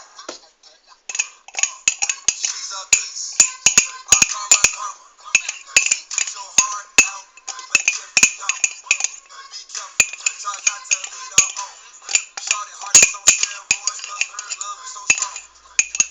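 A metal fork scraping and clinking against a bowl in quick, irregular clicks as brownie batter is scraped out into a cup.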